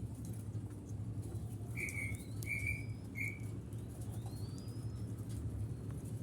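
Small bird calls: three short high notes in quick succession about two seconds in, with thin rising chirps around them, over a steady low hum.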